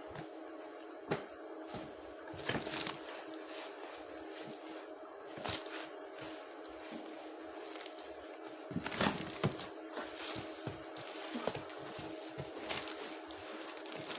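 Intermittent rustling and crinkling of packaging being handled, in short bursts that grow busier about two thirds of the way through, over a steady low hum.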